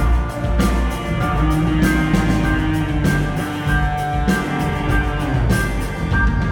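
Rock band playing live, with guitars over a steady drum beat.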